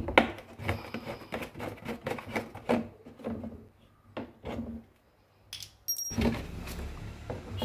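Plastic screw cap being twisted off a plastic jug: a run of small plastic clicks and crackles from the cap and the gripped jug for the first few seconds, then quiet.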